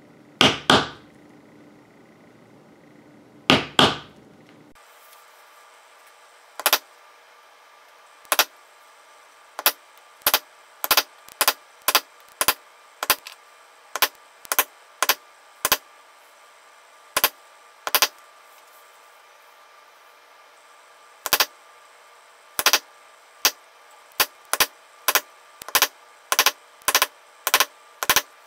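A mallet striking a metal leather stamping tool, pressing a border pattern into tooling leather. Sharp single strikes at an uneven pace, with two heavier doubled blows in the first few seconds and the strikes coming quicker toward the end.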